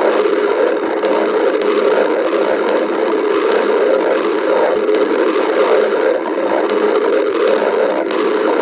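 A person's stomach growling, the hunger rumbling of an empty stomach: a loud, unbroken low rumble.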